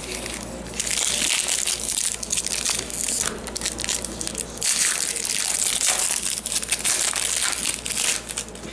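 Foil wrapper of a trading-card pack crinkling and crackling in the hands as it is handled and ripped open, in an uneven run of rustles.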